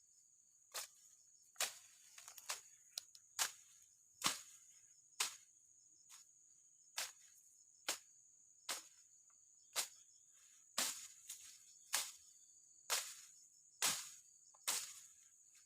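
Steady high-pitched chirring of insects, overlaid by a series of sharp knocks at irregular intervals, roughly one a second.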